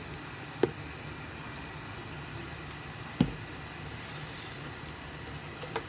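Andouille sausage, onion and bell pepper sizzling steadily in a pressure cooker pot on sauté, with two sharp taps, the louder one about three seconds in.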